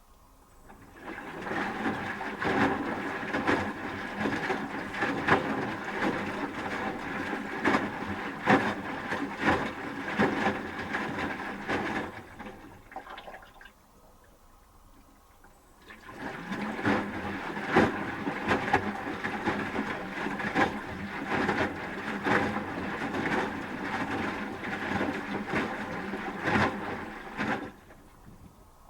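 Asko Quattro W6098X washing machine drum tumbling laundry through rinse water, sloshing and thudding. There are two runs of about eleven seconds each, with a pause of about three seconds between them while the drum stands still before it turns again.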